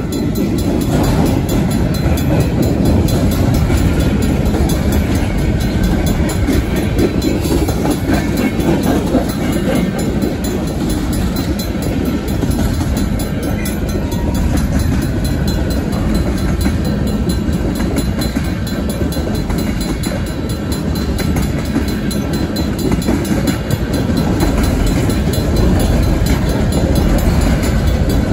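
Freight cars of a Union Pacific mixed freight train rolling past close by. Steel wheels on rail make a steady, loud rumble and rattle.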